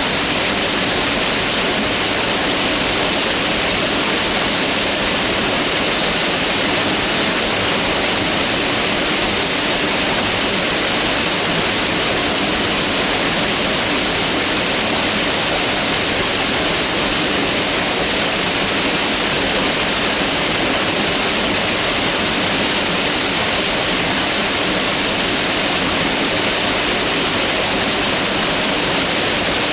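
Mountain river rushing steadily over rocks, a continuous, even wash of water noise.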